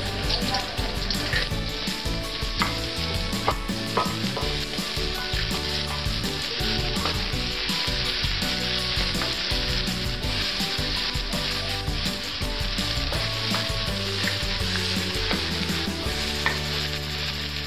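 Chopped garlic chives sizzling in hot oil in a metal wok, stirred with a spatula that scrapes and taps against the pan now and then. A steady low hum joins in near the end.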